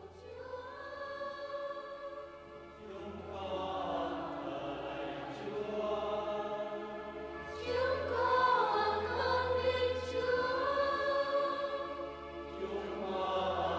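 A choir singing with long held notes that change every few seconds.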